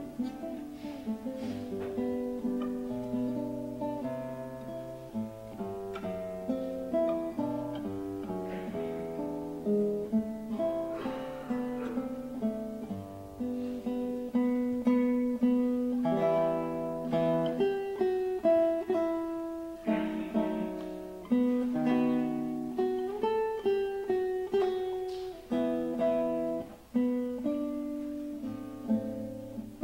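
Solo classical guitar played fingerstyle: a slow siciliana, a swaying dance melody over plucked bass notes.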